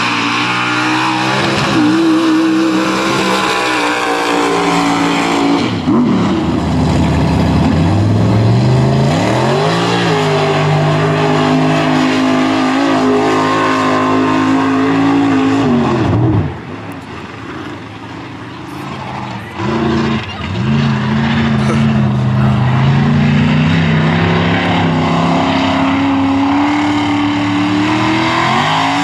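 Mud racing trucks' engines revving high under load, the pitch winding up, holding and falling off in several pulls as each truck runs the mud pit. A little over halfway through it drops quieter for a few seconds before another engine winds up again.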